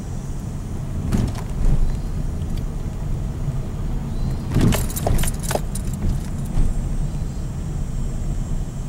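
Car driving on a gravel road, heard from inside the cabin: a steady low road and engine rumble, with light clinking rattles about a second in and a cluster of them around the middle.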